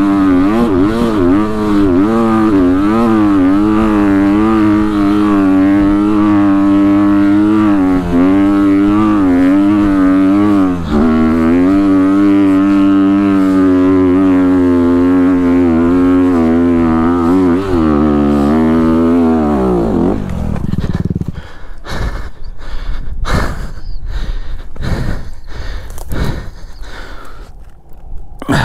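Honda CRF250RX dirt bike's single-cylinder four-stroke engine pulling hard up a steep sandy hill climb, its pitch rising and falling with the throttle. About twenty seconds in the engine note drops away. Scattered knocks and scrapes follow as the bike goes down on the slope.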